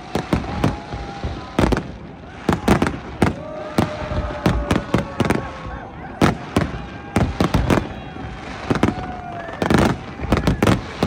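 Fireworks display: a fast, irregular series of sharp bangs from bursting shells, sometimes several within half a second, with no let-up.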